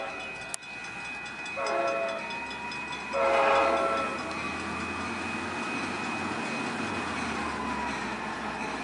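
Arriving F59PHI diesel locomotive sounding its horn twice, a short blast then a longer, louder one, over a low engine rumble as it pulls in. A grade-crossing bell rings steadily throughout.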